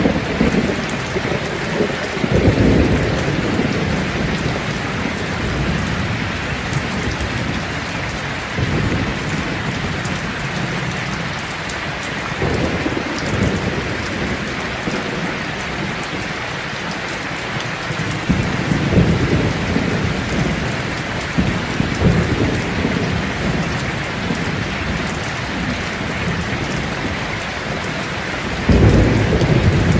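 Steady rain pattering down, with low rolls of thunder several times, the strongest near the end.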